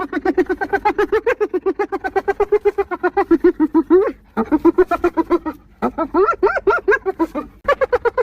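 Spotted hyena giggling: a fast run of short, high-pitched staccato notes, about seven a second, broken by two brief pauses.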